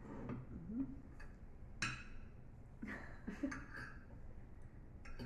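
Quiet eating at a table: cutlery clicks against a plate a few times, the sharpest about two seconds in, with faint murmured voice sounds between.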